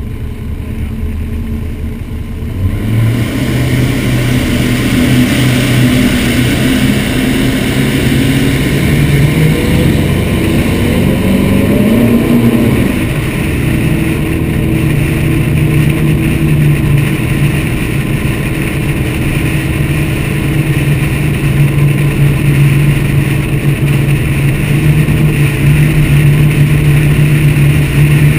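Engines of a Motion Powerboats 43GT catamaran, heard from the bow. They get louder about three seconds in and rise and fall in pitch near the middle, then settle into a steady drone as the boat runs out of the inlet, with water rushing and wind over the hull.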